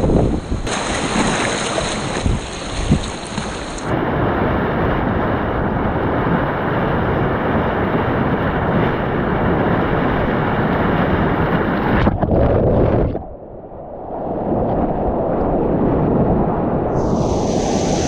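Loud, steady rushing of big-volume whitewater rapids, with waves splashing against the kayak and wind buffeting the action camera's microphone. The sound changes abruptly about four seconds in, then briefly dips and goes muffled around two-thirds of the way through.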